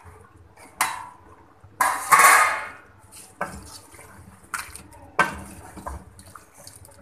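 A metal lid clattering as it comes off an aluminium cooking pot, then a wooden spoon stirring a thick, saucy chicken-and-potato curry and knocking against the pot's side several times. The loudest clatter comes about two seconds in.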